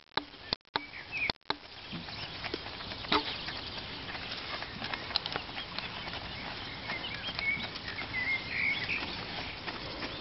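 Outdoor background noise with scattered light knocks and a few bird chirps, the chirps clustering about three-quarters of the way through. The sound drops out briefly a couple of times in the first second and a half.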